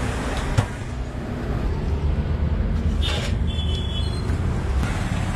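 Street traffic: a steady low rumble of passing vehicle engines, with a sharp click about half a second in and a brief high-pitched squeal a little after three seconds.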